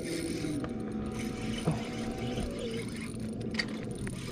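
Electric trolling motor humming steadily, its pitch stepping down twice as its speed is turned down, with a couple of light clicks.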